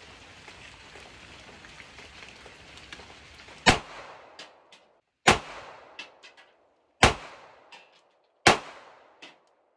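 Four single pistol shots from a Sig Sauer P365X Macro 9mm with its built-in compensator, about one and a half seconds apart starting a little over a third of the way in, each ringing briefly under a low tin roof. These are slow, deliberate first shots to zero a newly mounted red dot.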